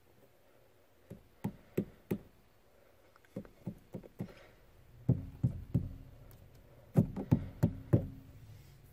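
Clutch and brake pedals of an 82-92 Camaro/Firebird being rocked by hand, the pedal arms knocking in quick runs of three to five. The knocks get louder in the second half.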